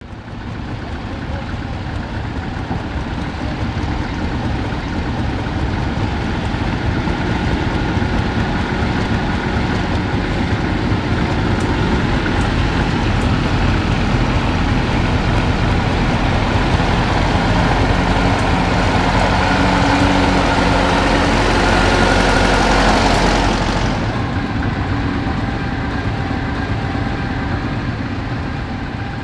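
Tractor engine running steadily and slowly growing louder for about twenty seconds. Then, about five seconds before the end, it turns abruptly duller and quieter and fades away.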